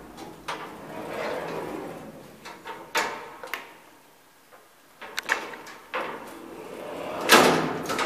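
Manual gate and door of a 1968 KONE gated elevator being handled: a sliding rattle, then a series of metal clicks and knocks, and a loud bang about seven seconds in as a door is shut.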